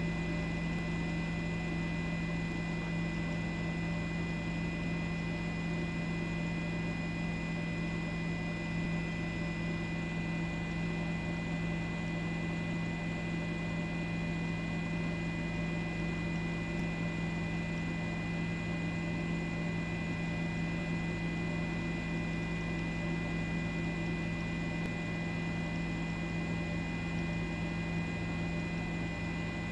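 A steady, unchanging electrical-sounding hum with a few constant tones, one low and strong and others higher and fainter.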